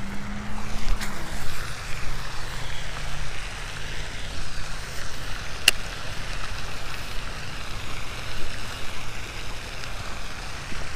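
Steady rushing noise of a pond spray fountain, with a low hum underneath and one sharp click a little past halfway.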